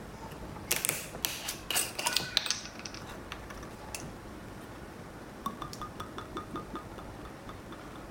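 Ice and glassware clinking: a quick cluster of sharp clinks with short ringing about a second in, then a run of lighter, quicker clinks near the end.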